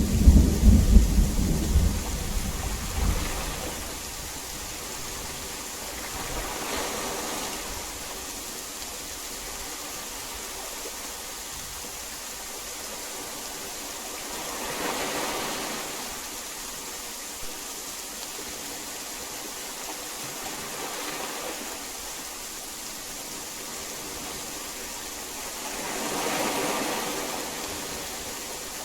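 Heavy rain falling steadily, with a loud low rumble of thunder dying away over the first few seconds. The rain hiss then swells and eases every several seconds.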